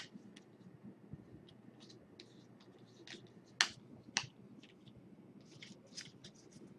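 A stack of trading cards handled and flipped through by hand: faint scattered ticks and snaps of card edges, with two sharper clicks about three and a half and four seconds in.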